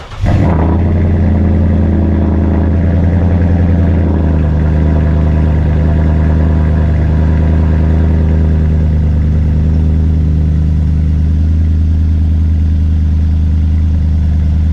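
2021 Nissan Titan's 5.6-litre V8 with a true-dual Flowmaster Super 10 exhaust and X-pipe, catching just after the start with a loud flare and then idling steadily. The note settles after about four seconds into an even, deep idle.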